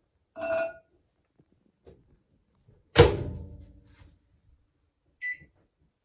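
A brief clink as food is set inside a microwave oven. About three seconds in, the microwave door is shut with a loud bang, and near the end comes a single short keypad beep.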